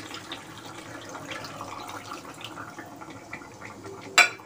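Water being poured into a pan of cooking chicken, a steady pour with a sharp knock about four seconds in.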